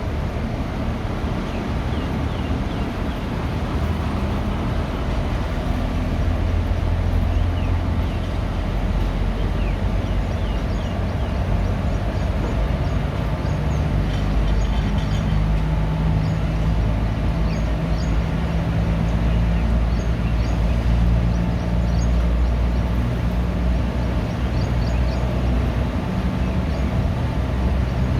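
ICF passenger coach running along the track, a steady rumble of wheels on rails heard from inside the coach. A few faint, short high squeaks come and go over it.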